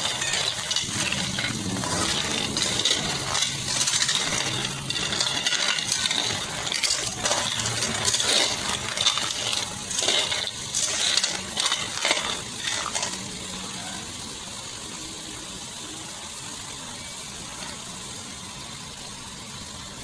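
Metal spatula stirring green mussels in a steel pan, the shells clinking and clattering against the metal over a steady sizzle. The stirring stops a little past halfway, leaving only the sizzle.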